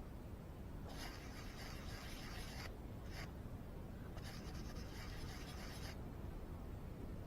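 Faint scratchy rubbing, like something dragged or scraped across a surface: two longer strokes of about a second and a half with a short one between, over a low steady rumble.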